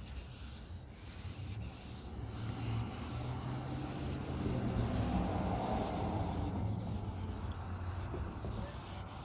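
600-grit wet sandpaper on a hand sanding block rubbing back and forth over wet car-body paint. It makes a steady rasping hiss with a faint tick at each change of stroke, about two or three strokes a second.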